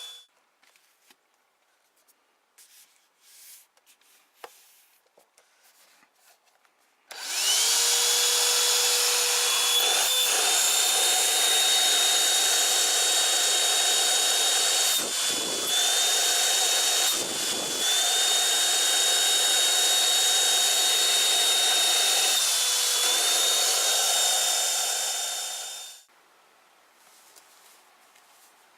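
Cordless handheld vacuum cleaner's 90 W motor switched on about a quarter of the way in, rising quickly to a steady high whine. It dips briefly in pitch three times and is switched off near the end. A few faint handling clicks come before it starts.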